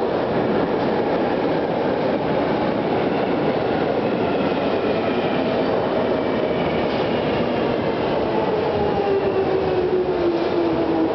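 London Underground Jubilee line train (1996 stock) running into the platform: a steady heavy rumble of wheels on rail. Over the second half, the traction motors' whine slowly falls in pitch as the train brakes to a stop.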